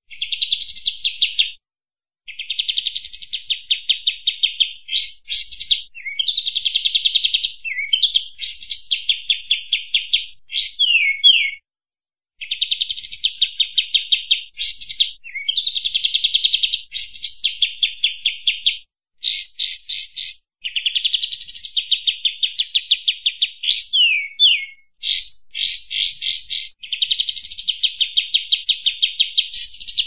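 Olive-winged bulbul (kapas tembak) singing nonstop in full, lively song: phrases of rapid trilled notes mixed with quick downward-sweeping whistles, broken by a few short pauses.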